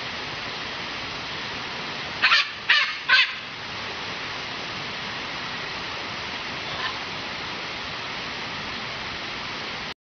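Parrot giving three harsh squawks in quick succession about two seconds in, then a fainter one near seven seconds, over a steady rushing hiss.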